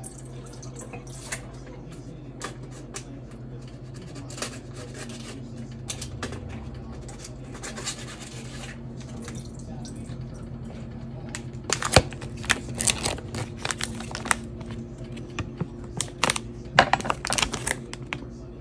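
Kitchen work sounds: water running briefly, and a series of sharp knocks and clatters that come thicker in the second half, over a steady low hum.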